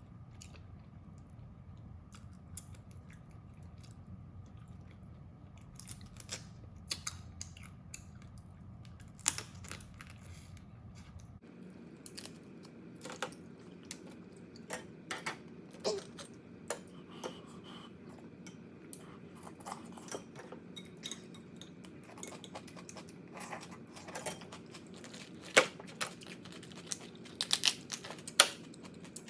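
Crab shells being bitten, cracked and gnawed, with chewing: scattered sharp cracks and crunches, sparse at first, then coming more often from about halfway, with the loudest cracks near the end.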